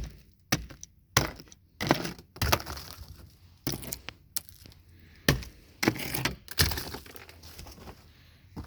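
Ice being smashed: about a dozen sharp cracks and shattering knocks at irregular intervals, chunks of ice breaking apart.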